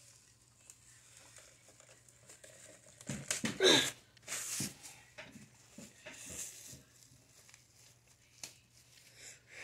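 Thin plastic bag crinkling and being snipped with small scissors, in short scattered bursts with a few light clicks, and one short falling squeak about four seconds in.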